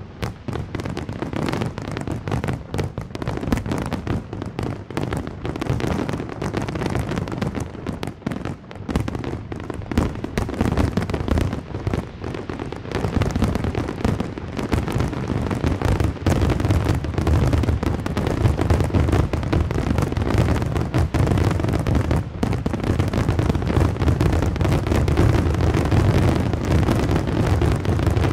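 Fireworks going off in a dense, continuous barrage of overlapping booms and bangs, growing louder in the second half.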